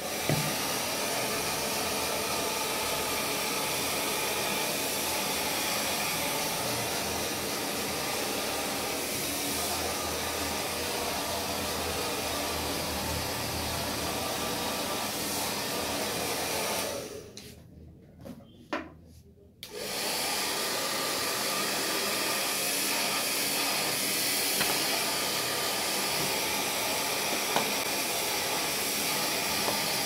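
Handheld hair dryer switched on and blowing steadily. About 17 seconds in it cuts out for some three seconds, with a couple of clicks, then starts again and runs steadily.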